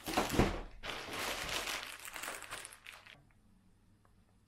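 Clear plastic bag crinkling and rustling as a paddle board hand pump wrapped in it is handled and lifted from its box. It stops about three seconds in.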